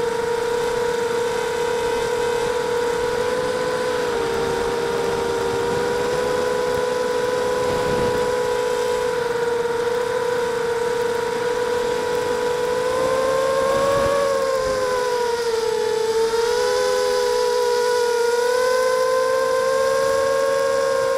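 Small FPV racing quadcopter's brushless motors and propellers, heard from its onboard camera: a steady whine of two or three close pitches that rises about 14 seconds in, dips, then climbs back as the throttle changes.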